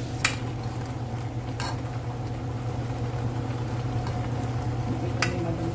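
Seafood boil of crabs in thick sauce cooking in a stainless steel pot, over a steady low hum, while a metal utensil clinks sharply against the pot three times as the crabs are stirred: once just after the start, again before two seconds in, and once near the end.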